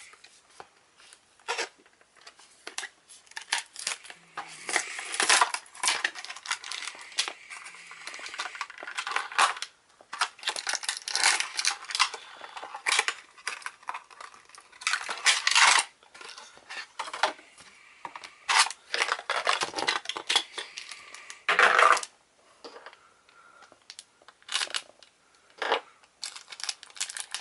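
Clear plastic blister packaging and its cardboard backing being pulled apart and handled, in irregular crackles, crinkles and tearing sounds with sharp little clicks and plastic clatters in between.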